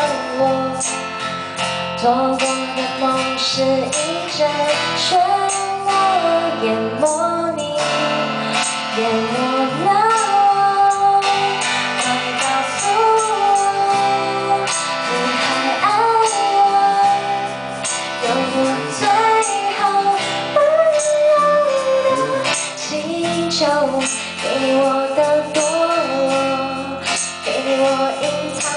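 Live acoustic band music: a woman sings a melody over a strummed acoustic guitar, with an electric bass playing underneath.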